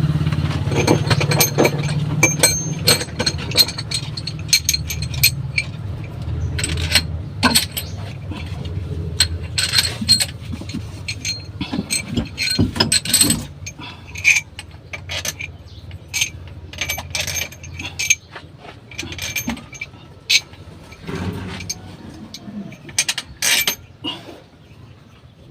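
Metal hand tools clicking and clinking on engine parts, with ratchet-like clicks, in an irregular run of sharp ringing taps. A low rumble underneath fades out over the first several seconds.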